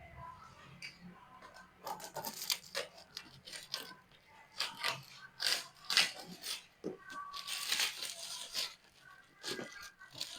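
Parcel packaging being torn open by hand: irregular bursts of tearing and crinkling, with short pauses between them.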